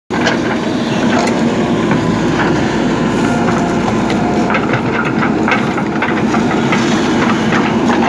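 JCB 3DX backhoe loader's diesel engine running steadily under load as its backhoe bucket digs, with irregular cracks and knocks of soil and roots breaking and the bucket scraping.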